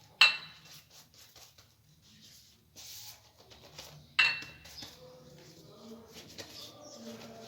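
Two sharp clinks of a metal utensil against a dish, about four seconds apart, each ringing briefly, with faint handling noises between.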